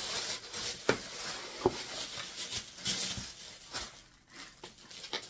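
Packaging rustling and crinkling as tissue paper and plastic wrap are pulled out of a box by hand, with two sharp taps in the first two seconds.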